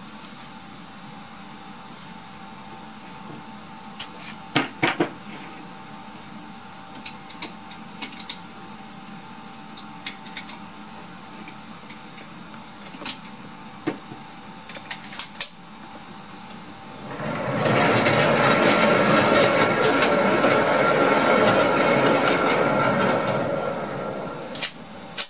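Small metallic clicks of 9x21 pistol cartridges being handled at the bench. About 17 seconds in, the range's electric target carrier runs steadily for about seven seconds, sending the paper target downrange. It ends in one sharp click as the pistol is taken in hand.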